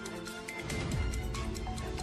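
Background music with a steady beat; a heavy bass comes in about half a second in.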